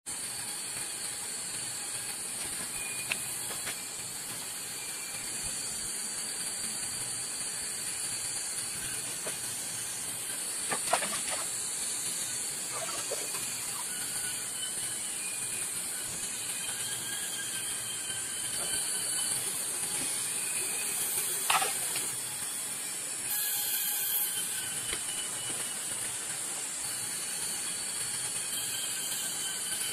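Forest insects droning steadily at a high pitch, with a couple of sharp knocks about 11 and 21 seconds in.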